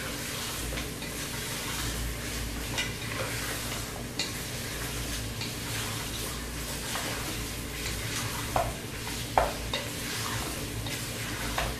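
Mutton frying and sizzling in a pressure cooker while a wooden spoon stirs and scrapes it, with a few sharp knocks of the spoon against the pot, mostly in the second half. The meat is being browned so it releases its own juices.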